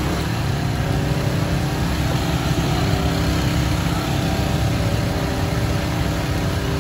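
Electric countertop blender running steadily as it blends falsa berries into juice.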